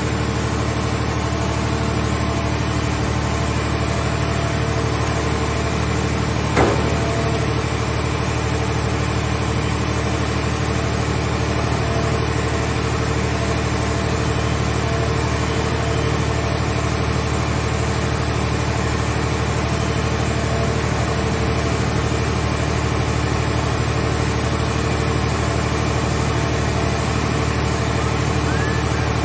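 Hydraulic scrap-handling machinery running with a steady drone as a grapple lowers a wrecked car into a scrap car baler's press box. One sharp knock comes about seven seconds in.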